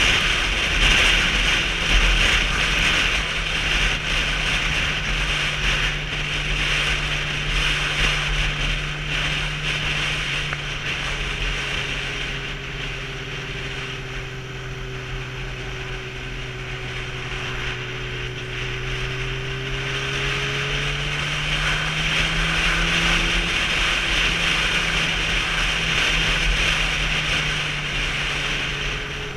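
Sport motorcycle's engine running under way, with steady wind rush over the microphone. The engine note and wind drop in pitch and level as it slows around the middle, then climb again as it speeds up near the end.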